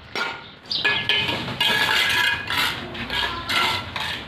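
Steel bricklayer's trowel striking and scraping red clay bricks as they are set in a wall: a run of sharp metallic clinks, each with a brief ring.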